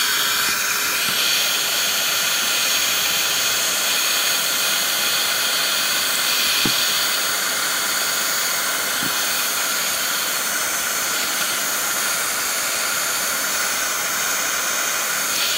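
Electric heat gun blowing steadily, an even fan-driven hiss, aimed at clear soda-bottle plastic to shrink it down onto a pipe.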